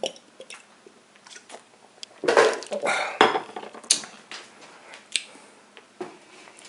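A man drinking beer from a glass bottle: swallowing sounds, with a louder noisy stretch of about a second some two seconds in, then a few sharp clicks and knocks.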